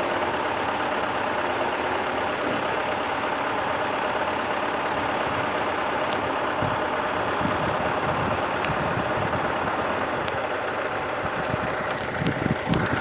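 Truck engine idling steadily, from the truck-mounted crane used to lift the transformer. A few low bumps come near the end.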